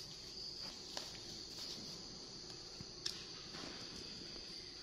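Faint, steady high-pitched trill of crickets, with a couple of light clicks and soft rustling from a disposable diaper and small clothes being handled.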